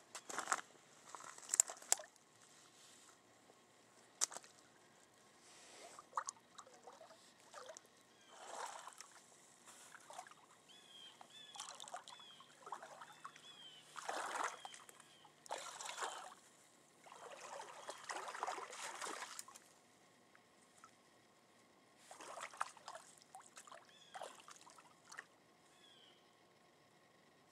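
A person wading in shallow lake water at the shore, boots sloshing and splashing in irregular bursts.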